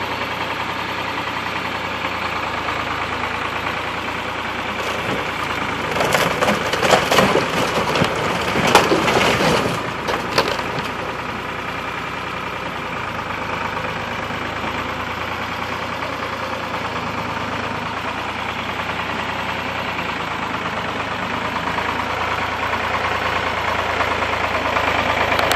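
An engine running steadily throughout, with a louder spell of cracking and crunching about six seconds in that lasts around four seconds: the wood and panels of a motor home splintering as it is torn apart.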